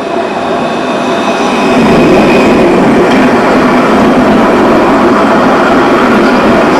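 Tram running on rails, its rumble building over the first two seconds and then holding steady, with a faint high whine above it.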